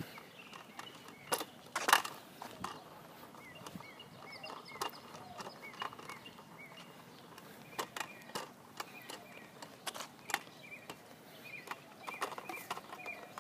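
Footsteps and the knocks and rattles of a kick scooter carried by hand, with a louder clatter about two seconds in. Series of short high chirps come and go throughout.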